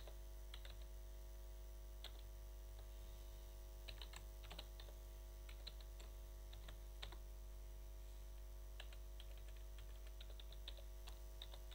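Computer keyboard typing: scattered keystrokes in short runs, busiest near the end, over a low steady electrical hum.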